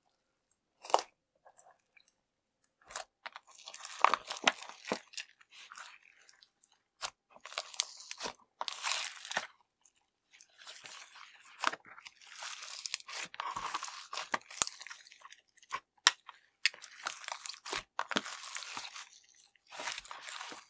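Slime being squished and worked by hand, giving sharp clicks and crackling pops in irregular bursts that begin about three seconds in.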